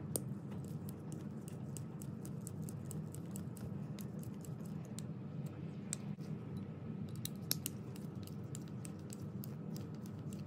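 Hex driver unscrewing the small screws of an RC car's center differential case: a string of small irregular metal clicks and ticks as the tool turns and the diff is handled, over a steady low hum.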